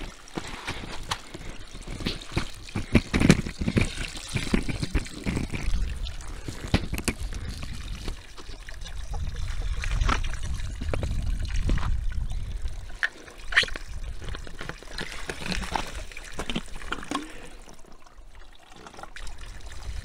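Water from a small mountain spring trickling and splashing, with scattered clicks and knocks. The water runs louder for a few seconds in the middle.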